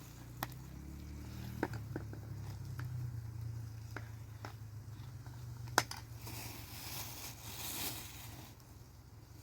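A few scattered sharp clicks and knocks, the loudest about six seconds in, over a low steady hum.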